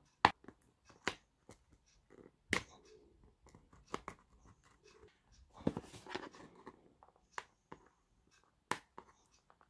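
Fingernails picking and scraping at a plastic tamper-evident seal sticker on a cardboard phone box: scattered small clicks and scratches, with a longer scratchy stretch about six seconds in.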